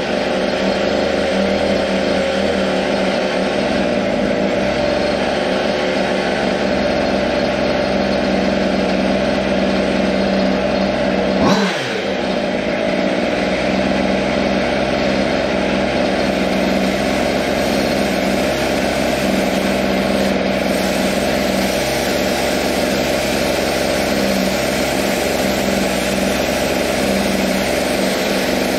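Water-cooled Zenoah G300PUM two-stroke engine on a GoPed Sport running steadily at high revs with no load while its WT-668 carburetor is tuned. The revs dip briefly a little before halfway, then settle back.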